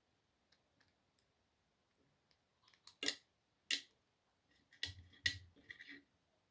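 Hand-handled tool parts knocking and clicking: two sharp knocks about three seconds in, then a cluster of clicks and two heavier knocks with a dull thud about five seconds in.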